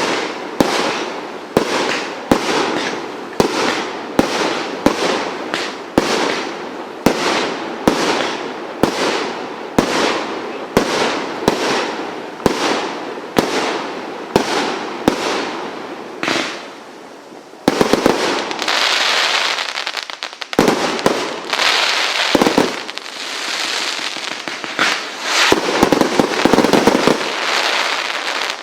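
Multi-shot firework firing a steady run of shots, about three every two seconds, each followed by a crackling tail. After a short lull about 17 seconds in, it gives a denser stretch of crackle and rapid pops that cuts off suddenly at the end.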